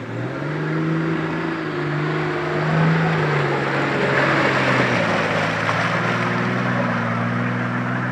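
A 4x4 off-road vehicle's engine working hard under load as it drives through deep mud, its pitch rising just after the start, dipping briefly about five seconds in, then holding. The tyres churn and slosh through the mud, loudest about four seconds in as the vehicle passes close.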